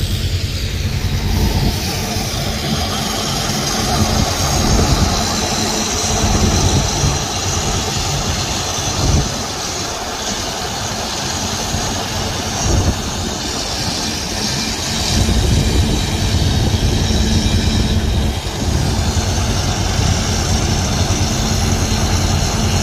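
GE 44-ton diesel-electric locomotive idling, a steady low engine hum that swells and eases slightly.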